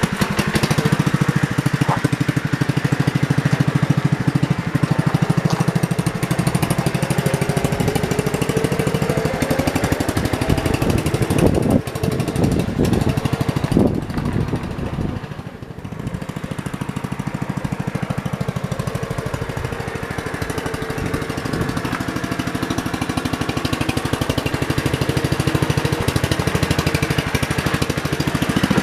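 1968 John Deere 110 garden tractor's engine running steadily. About halfway through, its note and level drop briefly, then pick back up.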